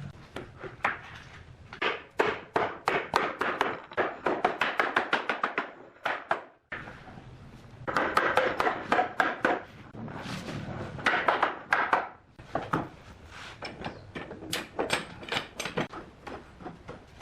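Rapid runs of knocks on wood, several strikes a second, from hand-tool work on the wood; the knocking breaks off briefly about six and a half seconds in, then resumes.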